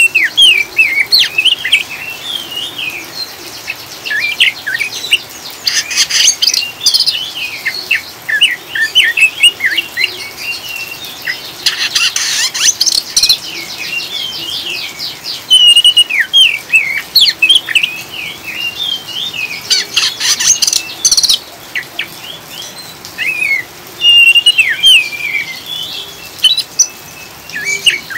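Oriental magpie-robin singing a long run of varied, sliding whistled phrases, broken three times by fast, rattling twittering: the 'ngriwik' chatter that keepers play to prompt other birds to sing.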